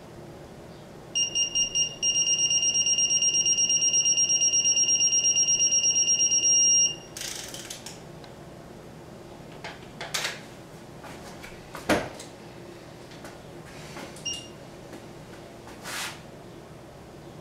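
Digital torque wrench beeping as a bolt is tightened: four short beeps, then a rapid, unbroken string of beeps for about five seconds, the wrench's signal that the set torque is reached. Afterwards a few light clicks of the wrench and tools, a sharp knock, and one brief beep.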